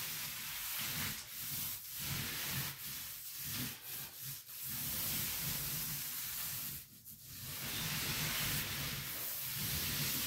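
Paint roller on an extension pole spreading wet paint over a wall: a steady rubbing noise in repeated up-and-down strokes. The strokes are short early on, then come two longer runs, with a brief pause about seven seconds in.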